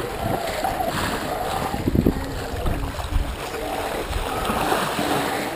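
Bow wave rushing and splashing along the hull of a small racing sailboat under way, in irregular surges.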